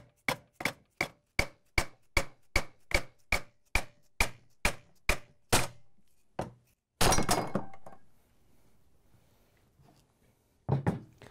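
Hammer blows on a big flathead screwdriver, about two and a half a second, driving the pressed-in external ring gear out of a KitchenAid stand mixer's housing. About seven seconds in there is a loud ringing metallic clatter as the gear pops free, then one more knock near the end.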